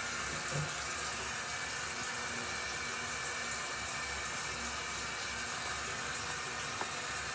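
Bathroom tap running: a steady hiss of water flowing into the sink.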